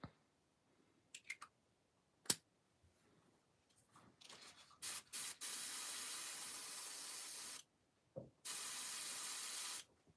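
A sharp click about two seconds in, then an airbrush hissing in two bursts of spray: a long one of nearly three seconds and a shorter one of just over a second.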